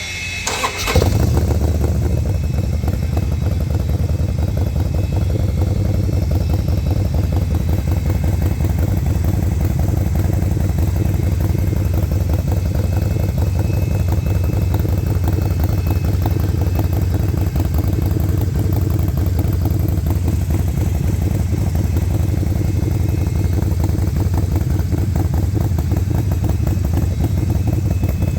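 Harley-Davidson Forty-Eight XL1200X's air-cooled 1200 cc V-twin, breathing through a Vance & Hines Grenades full-system exhaust, starts with a brief crank about a second in and then idles steadily with an even low pulsing beat.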